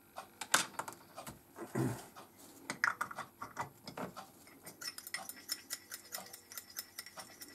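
A copper-rod scoop and stirrer clinking against a glass jar and a small metal cup as white spirit is added to paint, with scattered clicks and taps. Then, about two thirds of the way in, a fast steady ticking of about five strokes a second as the rod stirs the thinned paint against the inside of the metal cup.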